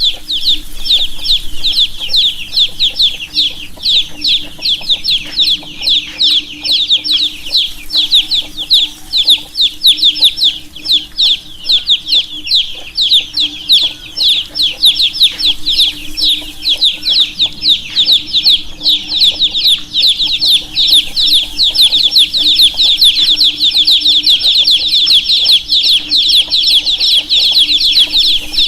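A group of baby chicks peeping constantly, many short, high, downward-sliding chirps overlapping, with a steady low hum underneath.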